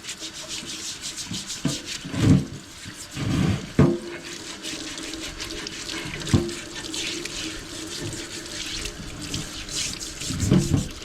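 Running water rinsing Evaporust off rusty steel pipe wrenches, a steady splashing hiss, with a few dull knocks as the wrenches are handled.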